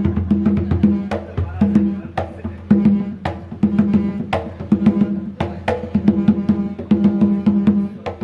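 Percussion set played in a fast, steady rhythm: a quick run of sharp strikes over a ringing drum tone.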